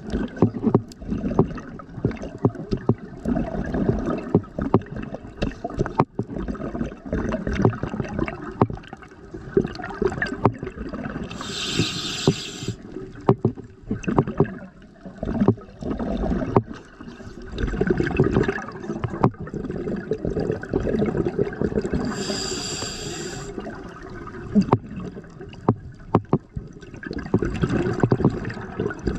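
Scuba diver breathing through a regulator underwater: exhaled bubbles rumble and crackle in long stretches, broken twice by a short hissing inhalation, near the middle and about three-quarters of the way through.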